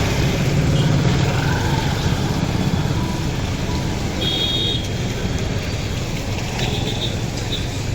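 Road traffic in heavy rain: a steady wash of vehicle noise and rain, with a few short high-pitched tones from about halfway through.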